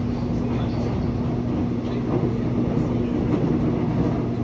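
Seoul Subway Line 1 electric train running at speed: a steady rumble of wheels on rails with a constant low hum.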